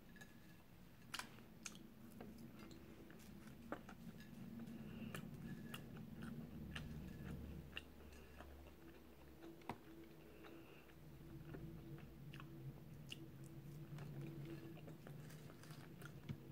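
Faint chewing of a mouthful of egg fried rice and crispy seaweed, with scattered light clicks of a plastic fork against a plate.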